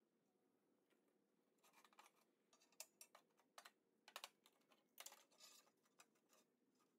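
Faint, irregular light clicks and clatters of steel angle iron and tube being shifted and set down on a metal table. The clicks start about a second and a half in and stop shortly before the end.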